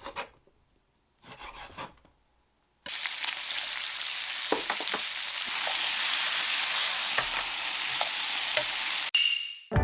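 Food stir-frying in a frying pan: a loud, even sizzle that starts suddenly about three seconds in, with a spatula clicking against the pan now and then, and cuts off abruptly just after nine seconds. A couple of short, quieter sounds come before it.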